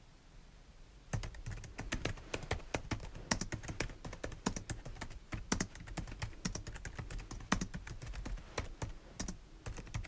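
Typing on a computer keyboard: a quick, irregular run of keystroke clicks that starts about a second in and goes on steadily.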